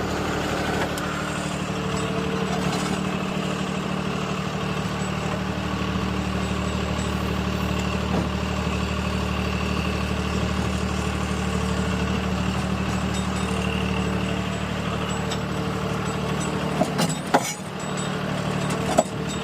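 Vermeer CTX100 mini skid steer's 40-horsepower Kohler diesel running steadily, with a few sharp knocks near the end.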